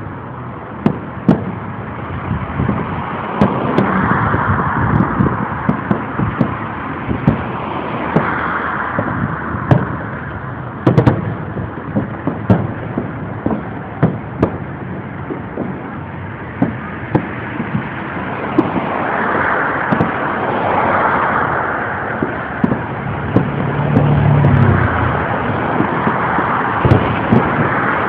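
Fireworks display: loud bangs and booms going off in irregular quick succession, often several a second, over a continuous rumbling, crackling wash that swells and fades.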